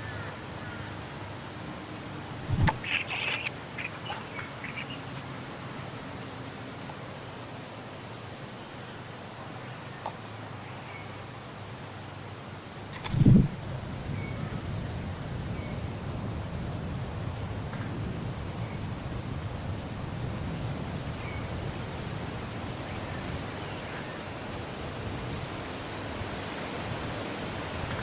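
Steady high-pitched insect trilling, cricket-like, with a few short chirps about three seconds in and a single thump just past the middle.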